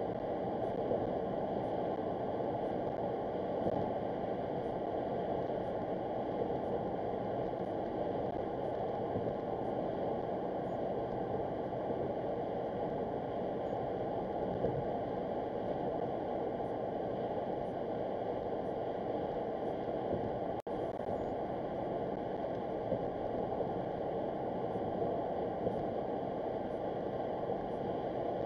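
Steady road and tyre noise of a car cruising at highway speed, heard inside the cabin through a dashcam's microphone, with one brief click about two-thirds of the way through.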